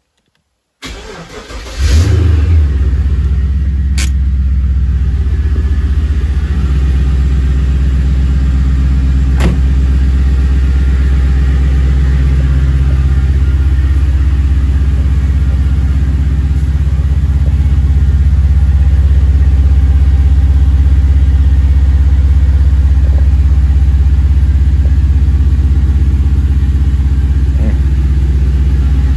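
Holden Commodore's 5.7 litre LS1 V8 cold-started after sitting unused for two or three months: it cranks for about a second, catches with a brief rev flare, then settles into a steady idle through its 3-inch stainless exhaust.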